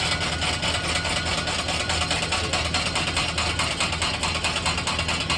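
Harbor Breeze Barnstaple Bay ceiling fan running under destruction, with a steady, rapid, even rattle over a low electrical hum.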